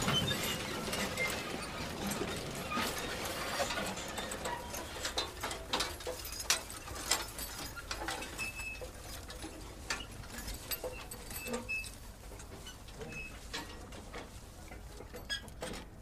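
Manure spreader's mechanism rattling, a dense run of irregular clicks and knocks that grows fainter in the second half.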